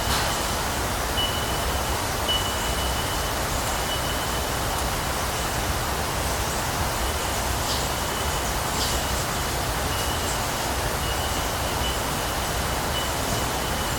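Heavily amplified bush field recording: mostly a steady hiss, with a thin high steady tone that drops in and out and a few faint ticks.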